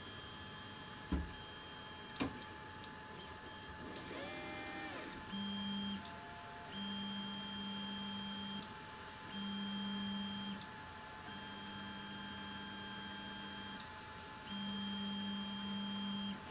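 Creality Ender 3 on its stock Creality mainboard auto-homing: the stepper motors whine in several steady-pitched runs of one to two seconds as each axis moves, over the constant whir of the cooling fans at full speed. Two sharp clicks come near the start, and a brief rising-and-falling whine about four seconds in. This is the louder stock-board motor noise, peaking at about 62 dB on a phone meter.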